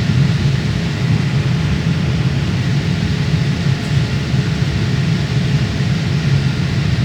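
Steady engine and air noise of a jet airliner heard from inside the passenger cabin during takeoff, a constant low rumble with an even hiss above it.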